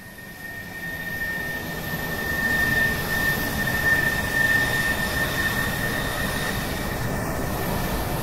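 Airliner jet engines heard from inside the cabin during the climb-out just after takeoff: a steady rushing roar with a steady high whine on top, growing louder over the first few seconds and then holding steady.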